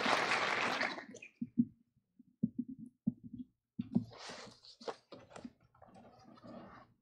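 Applause dying away about a second in, followed by a series of short footsteps on a wooden stage floor and some soft rustling.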